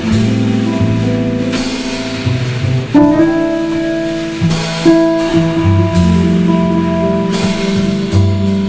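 Live jazz trio playing a slow ballad: electric guitar holding sustained melody notes over walking stand-up bass lines, with soft brushed or cymbal drum work.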